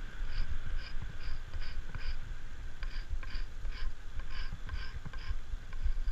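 Steady low rumble, with a run of short, high chirps repeating about two or three times a second over it.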